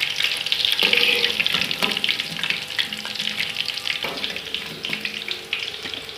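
Breaded chicken pieces shallow-frying in hot oil: a steady crackling sizzle, with a few light knocks about one, two and four seconds in.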